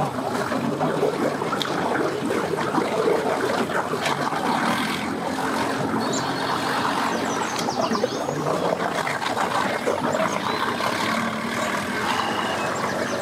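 Bass boat's outboard motor running steadily at low speed, churning the water behind the propeller.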